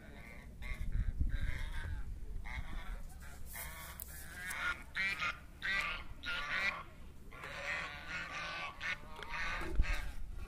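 Waterfowl calling: a long series of short, repeated honking calls.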